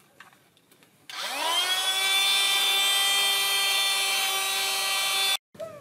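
Small handheld battery-powered air pump starting up about a second in, its motor whine rising quickly in pitch, then running at a steady high whine until it cuts off suddenly near the end. A few faint clicks come before it starts.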